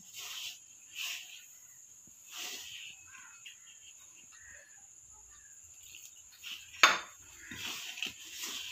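Hand rubbing and mixing dry flour in an aluminium bowl: soft, scattered rustling scrapes, with one sharp knock against the bowl about seven seconds in.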